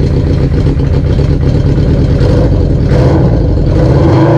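1981 Honda CB750's air-cooled inline-four engine running steadily just after being started, idling while the battery voltage is checked as part of a charging-system test.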